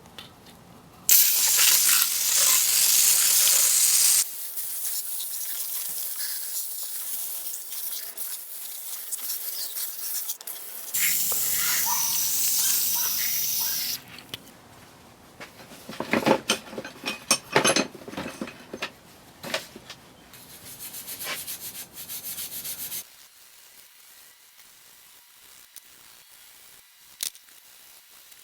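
Two long hissing sprays that start and stop sharply, then rough irregular scrubbing strokes, typical of cleaning rust from an old Craftsman table saw.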